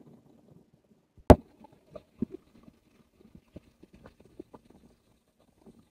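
A single sharp knock about a second in, then faint, irregular footsteps and small taps.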